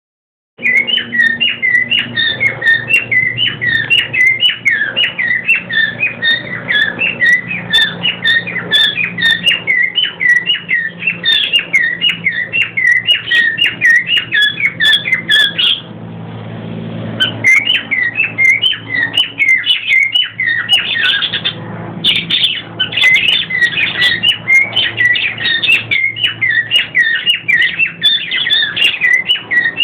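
A cockatiel and budgerigars chirping rapidly and continuously, in quick, repeated high notes. The chirping breaks off for about a second and a half just past the middle. A faint low steady hum runs underneath.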